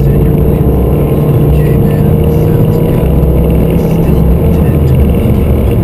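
Mini Cooper S driving at a steady speed: a steady engine drone over a low road rumble.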